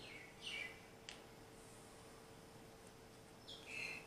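Tarot cards being handled and laid down on a cloth-covered table: a few short, high, chirp-like sounds near the start and again near the end, and one light click about a second in, over a faint steady hum.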